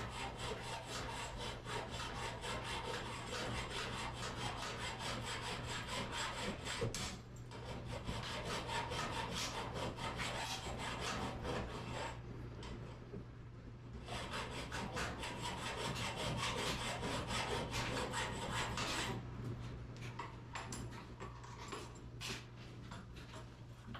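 A hand file rasping back and forth in repeated strokes over the steel torsion tube of a garage door, smoothing a large gouge left by the drum set screws. The filing pauses briefly twice and grows lighter near the end.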